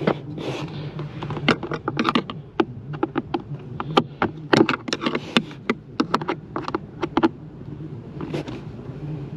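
Screwdriver working the mounting screws of a Jeep Grand Cherokee WJ's blower motor module under the dash: irregular sharp clicks and scrapes of metal on plastic, over a steady low hum.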